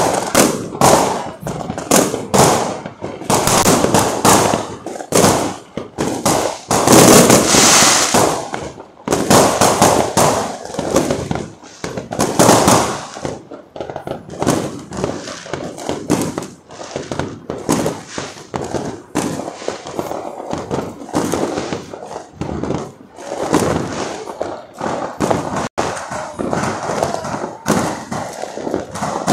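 Firecrackers and fireworks going off in a dense, continuous barrage of rapid overlapping bangs and crackling, loudest about seven to eight seconds in.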